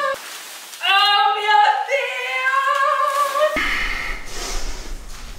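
A woman's voice singing long, high notes unaccompanied, in two held phrases that stop suddenly about three and a half seconds in. After that there is a steady low hum with hiss.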